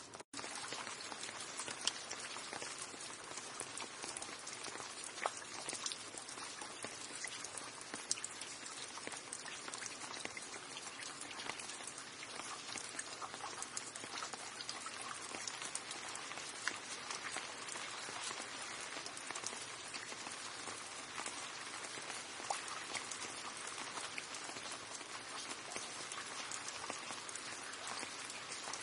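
Steady rain, a dense patter of many individual drops with now and then a louder single drop. The sound cuts out for a split second just after the start, then carries on.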